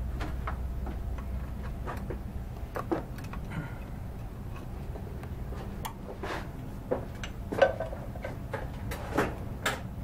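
Scattered small metallic clicks and taps of hand tools tightening the jam nut and set screws on a go-kart reverse cable fitting, over a steady low hum. The loudest clicks come in the last few seconds.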